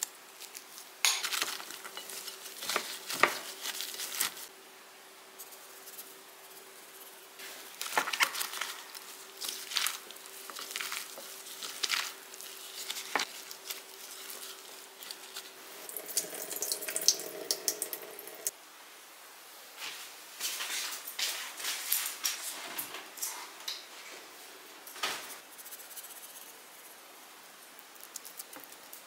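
Kitchen prep sounds: julienned Korean radish strips tossed and mixed in a glass bowl with salt and chili flakes, with scattered short clicks and taps of utensils against the glass.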